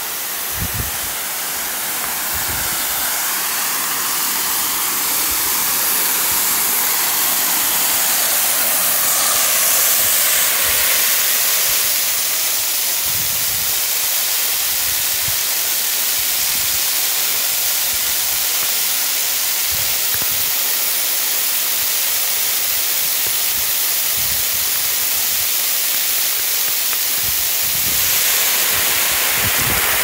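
Tall plunge waterfall falling into its rock pool: a loud, steady rush of water and spray, growing louder over the first several seconds, with occasional short low thumps.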